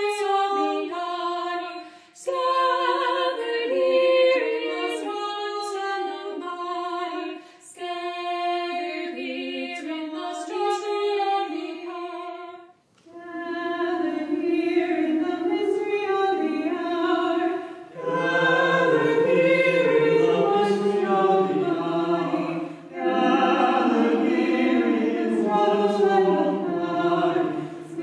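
Background music of unaccompanied choral singing in phrases a few seconds long with short pauses between them; the upper voices carry the first half, and lower voices join for a fuller sound about two-thirds of the way through.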